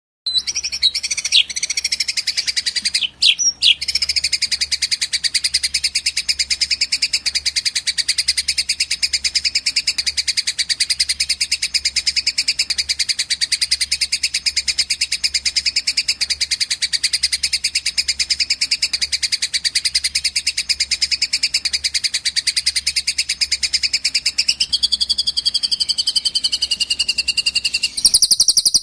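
Songbird training recording of small birds singing a rapid, high, unbroken chattering trill, the fighting call of tree sparrows and the long song of a cililin. It breaks briefly about three seconds in, a second, lower voice joins near the end, and it shifts to a louder, denser phrase just before the end.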